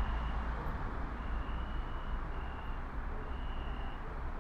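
Steady low background rumble and hiss of outdoor ambience, with a thin high-pitched tone that comes and goes several times, each stretch lasting about half a second to a second.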